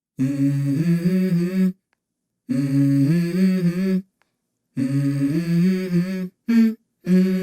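Background music: a wordless hummed vocal phrase stepping through a few notes, repeated three times with short silent gaps, then a brief note and the start of a fourth phrase near the end.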